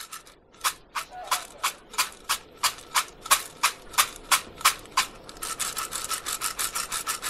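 Coffee beans being ground by hand: rhythmic rasping strokes, about three a second, turning to quicker, denser scraping about five seconds in.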